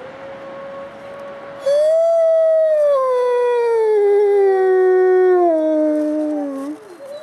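Gray wolf howling. A quieter, steady howl leads in, then a loud, long howl begins about two seconds in, sliding slowly down in pitch before breaking off near the end.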